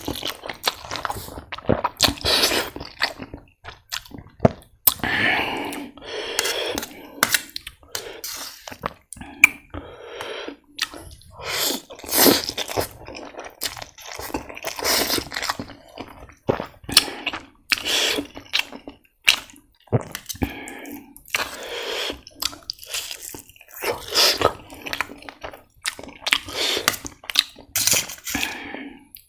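Close-miked eating of hot spicy chicken instant ramen noodles: wet chewing and slurping in short, irregular bouts.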